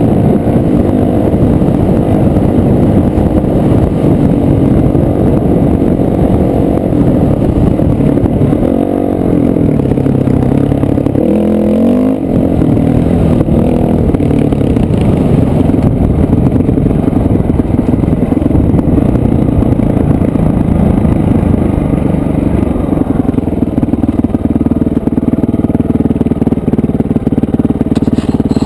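Dirt bike engine running under load on a rough trail, the revs dropping and climbing back up about a third of the way through.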